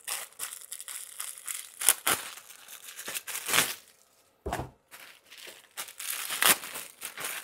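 Packaging crinkling and rustling, with some tearing, in irregular bursts as pit rags are unwrapped and pulled out of a shipping box; a brief lull about four seconds in.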